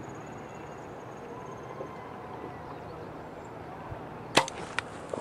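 A bow shot: a sharp snap of the string's release, then a smaller thud about half a second later as the arrow strikes the target downrange.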